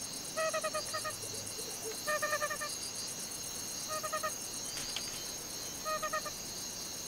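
Night ambience: crickets trilling steadily, with a short stuttering call of four or five quick notes repeated about every two seconds.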